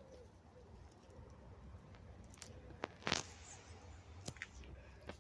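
A few faint, scattered crunches and clicks, the loudest about three seconds in, over a low steady hum.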